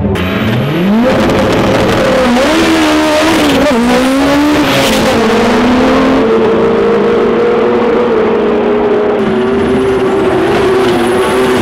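Drag cars' V8-style engines revving hard during a burnout and launch, climbing in pitch at the start, then holding high and steady for several seconds, over a haze of spinning-tyre noise.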